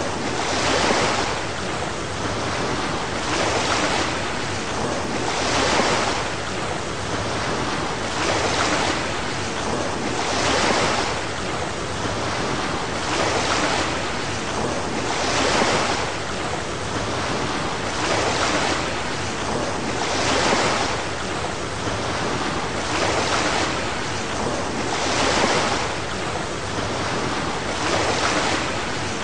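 Ocean surf washing in a steady rush, swelling and fading in an even rhythm about every two and a half seconds.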